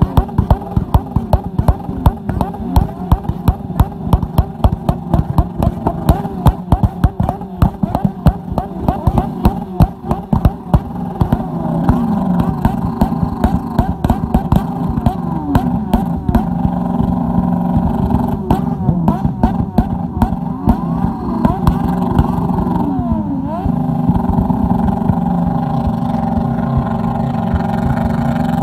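Sport motorcycle engine held on the rev limiter. For about the first ten seconds it fires a rapid string of loud exhaust pops and bangs, then it runs flat out at the limiter with the revs dropping and climbing back again a few times.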